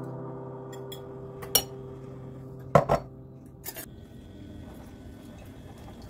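A few sharp clinks of metal spoons against soup bowls, the loudest about three seconds in, over faint background music that fades out about four seconds in.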